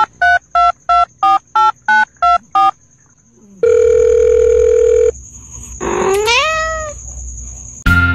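Touch-tone phone keypad beeps, about nine quick two-note presses, followed by a steady telephone line tone for about a second and a half. A cat's meow rises in pitch after it, like the cat answering the call. Music starts right at the end.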